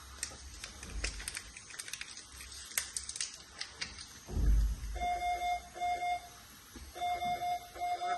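Medical equipment alarm beeping: short, high pitched beeps repeating in two groups from about five seconds in. Before it come light clicking and handling noises and a dull thump.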